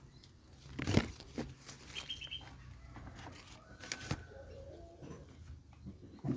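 Handling knocks and rustles as the phone camera is set in position, with a sharp knock about a second in and a louder one around four seconds, over faint bird chirps.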